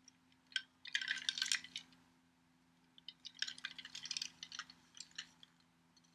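Small hard toy-train parts clinking and rattling together while being handled, in two flurries of quick light clicks.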